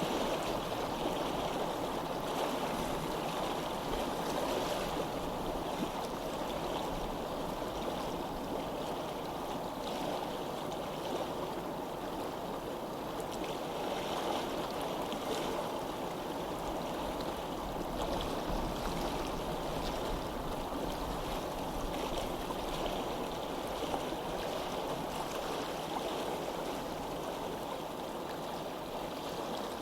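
Water of a stream flowing steadily.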